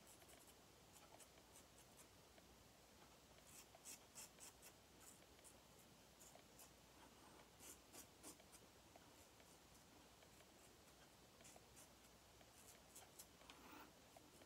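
Faint scraping of a Yaqi Katana safety razor with a Bic blade cutting stubble on the chin and neck, in three groups of quick short strokes: about four seconds in, about eight seconds in, and near the end.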